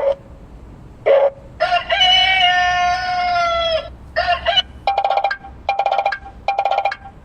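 Rooster sound mode played through a car speaker: a couple of short calls, then one long cock-a-doodle-doo crow that sags in pitch at the end, followed by four quick bursts of rapid clucking.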